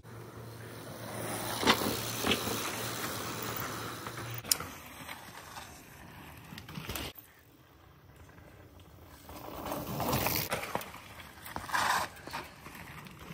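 Mountain bike tyres rolling and clattering over wooden trail planks, with a few sharp knocks from the boards. The sound dips in the middle and rises again near the end.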